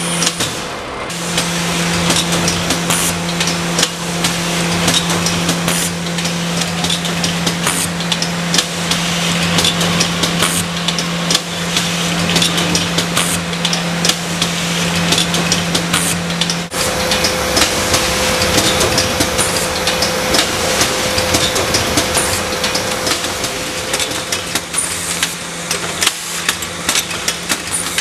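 Kern 515 EasyMailer paper-handling machine with its annex sheet feeder running: a steady motor hum under continual fast, irregular clicking and clacking from the sheet feed and transport. The hum's tone shifts about two-thirds of the way through.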